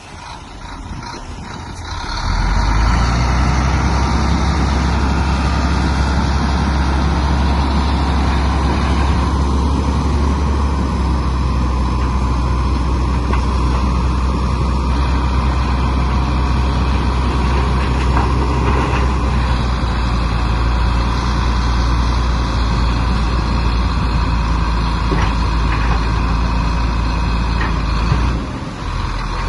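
Komatsu bulldozer's diesel engine running hard and steady under load, picking up about two seconds in and dipping briefly near the end.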